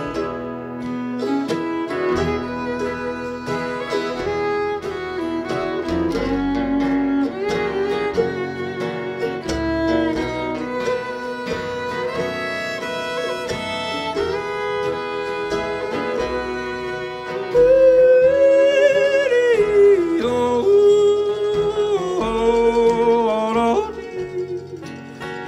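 Bluegrass fiddle playing a lead line over acoustic guitar strumming. About two-thirds of the way through, the fiddle gets louder and climbs higher with sliding notes.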